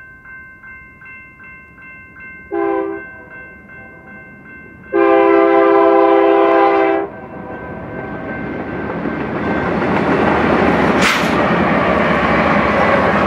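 A BNSF diesel locomotive's air horn sounds a short blast about two and a half seconds in, then a long blast of about two seconds, the end of the grade-crossing horn signal, over a crossing bell's faint steady ringing. The rumble and wheel noise of the locomotives and autorack cars passing then builds and grows loud toward the end, with one sharp clank about eleven seconds in.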